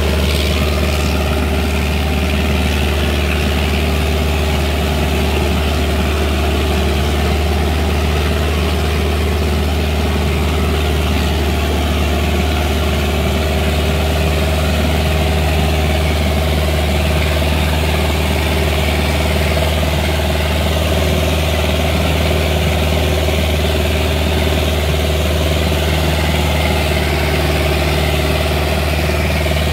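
Sonalika 750 tractor's diesel engine running hard at a steady pitch under heavy load while pulling a weighted disc harrow through soil.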